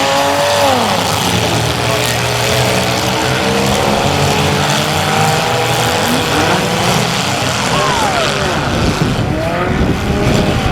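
Engines of several compact demolition-derby cars running and being revved, their pitches rising and falling over one another.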